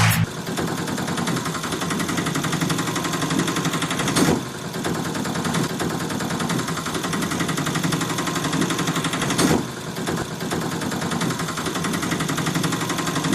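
An engine running with a rapid, steady mechanical rattle, broken briefly twice, about four and nine and a half seconds in.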